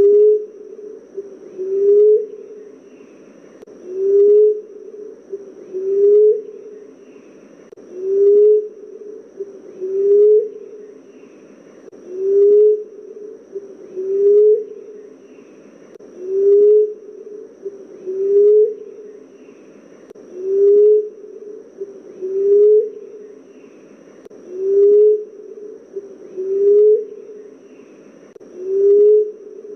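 Emerald dove cooing: a low, soft coo repeated steadily about every two seconds, each note rising slightly at its end.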